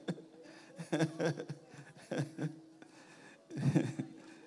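A man chuckling softly into a microphone in a few short bursts with pauses between them, over a faint steady low tone.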